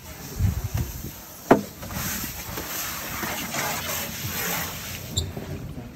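Knocks and bumps on a fibreglass boat as it is worked on, with one sharp knock about a second and a half in, followed by a rough, steady hiss for a few seconds.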